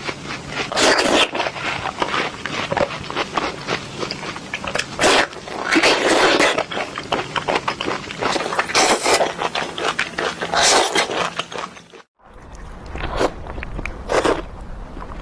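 Close-miked crunchy bites and chewing of fresh fruit, a rapid run of crisp crunches. About twelve seconds in the sound cuts out briefly and resumes with fewer, separate bites.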